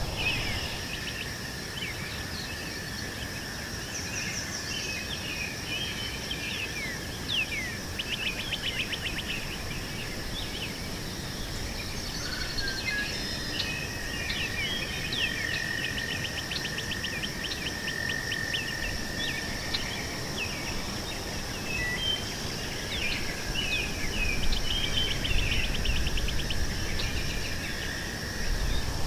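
Meadow birds chirping and trilling in short, repeated phrases over a steady, high-pitched drone of insects.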